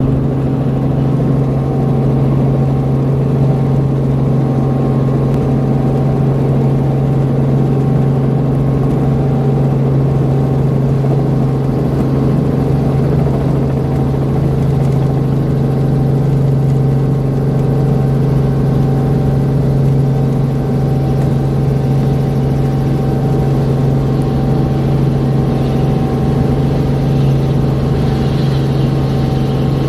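Helicopter engine and rotor droning steadily, heard from inside the cabin as it flies low and climbs.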